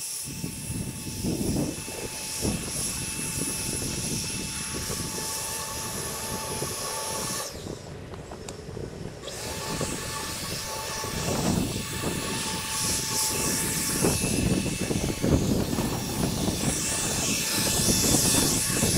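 Steady high whine of a battery-powered electric motor spinning a fan, blades or propellers, over a rushing hiss. The whine drops away for a couple of seconds about eight seconds in, then resumes.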